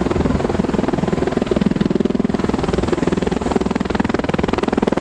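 V-22 Osprey tiltrotor aircraft hovering, its rotors giving a steady rapid beat over the engine noise.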